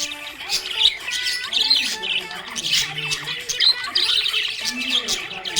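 Several budgerigars chirping and squawking over one another without a break, a busy mix of short sharp calls.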